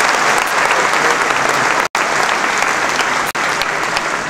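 Audience applauding: dense, steady clapping from a large crowd. The sound cuts out for an instant about two seconds in.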